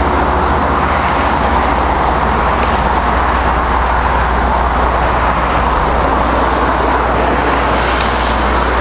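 Steady roar of road traffic passing on the roads beside the canal, an even noise with no single vehicle standing out.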